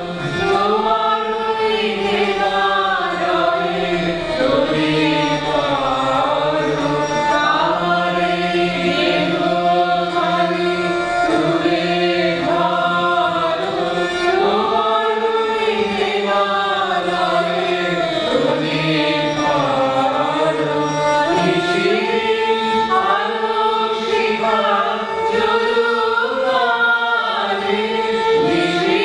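A small group of men and women singing a song together, their voices blended in one steady melody.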